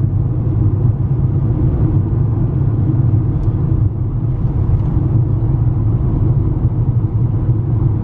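Steady low rumble of a moving car, engine and tyre noise heard from inside the cabin.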